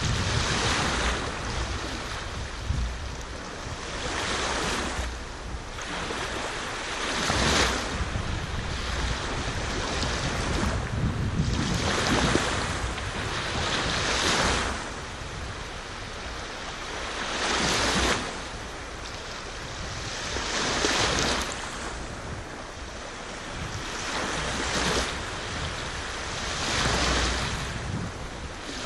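Sea waves breaking and washing up the shore, one surge after another every few seconds.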